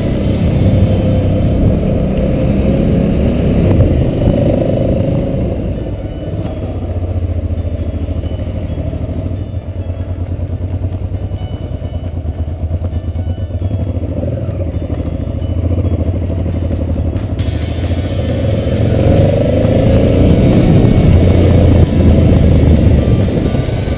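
Motorcycle engine running as the bike rides along, the revs easing off through the middle and rising again toward the end as it accelerates.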